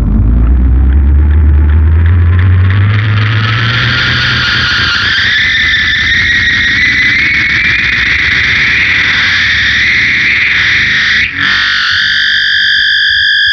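SG electric guitar through a Big Muff fuzz and an MXR Analog Delay with a little reverb, making spacey, distorted sustained sounds. A low, heavy note fades over the first few seconds while a howling tone glides slowly upward in pitch. The tone drops out briefly near the end, then settles into a steady high pitch.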